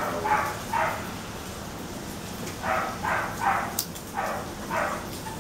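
A dog barking in short twos and threes, about seven barks in all, over a steady hiss of rain. There is one sharp click a little under four seconds in.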